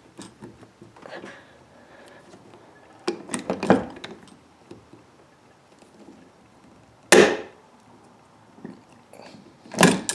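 Hand rivet tool squeezed on a 3/16 tri-grip blind rivet, with clicking strokes of the handles, then a loud sharp snap about seven seconds in and another near the end, the sound of the rivet's mandrel popping as the rivet sets.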